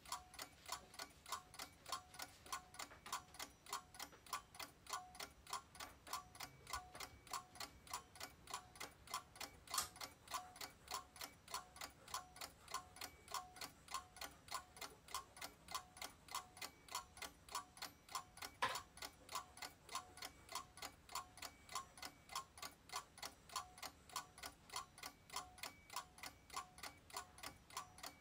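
A clock ticking steadily at about two ticks a second, with two sharper, louder clicks about ten and nineteen seconds in.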